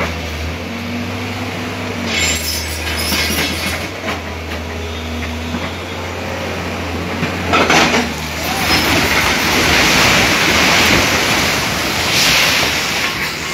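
Hydraulic excavator's diesel engine running steadily while it tears down a house, with a sharp crash about halfway through, then a long stretch of grinding, scraping and crumbling debris.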